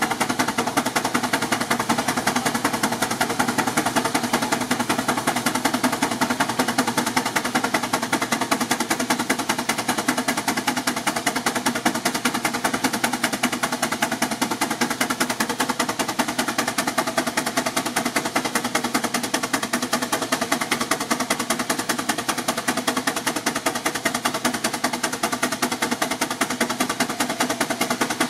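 Advance steam traction engine working hard under load on a dynamometer: a steady, rapid run of sharp exhaust chuffs from the stack.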